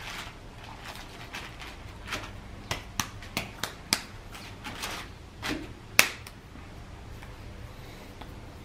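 Irregular sharp clicks and taps of a potter's hand tools and clay being handled on the work table, as pieces of clay are cut. About eight knocks come in a cluster in the middle, the loudest about six seconds in.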